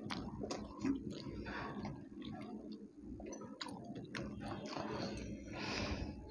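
Close-miked chewing of a crispy sandwich, with many small sharp mouth clicks.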